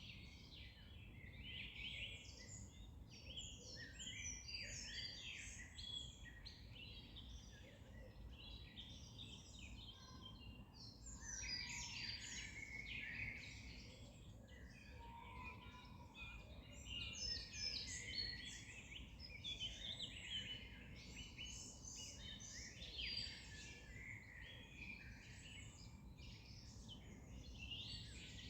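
Many songbirds chirping and trilling at once in a dense, continuous chorus, over a low steady background rumble.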